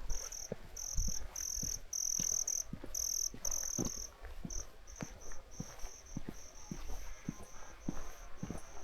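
An insect calling in a high, buzzing chirp, in pulses of uneven length at first and then a quicker, more even run of short chirps from about four seconds in. Soft knocks come underneath at roughly two a second.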